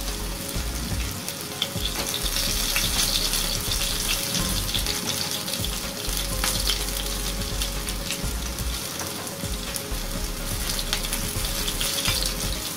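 Flour-battered chicken fillets shallow-frying in hot oil in a nonstick frying pan: a steady sizzle with many small crackling pops, as the chicken is left to cook right through.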